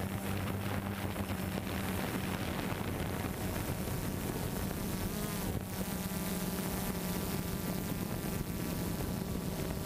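DJI Phantom 2 Vision+ quadcopter's motors and propellers buzzing steadily in flight, the pitch bending briefly about five and a half seconds in as the drone manoeuvres.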